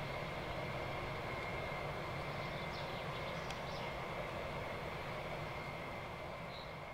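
Jet engines of a four-engine Boeing 707 tanker running during its landing rollout: a steady rumble with a high whine over it, slowly fading near the end.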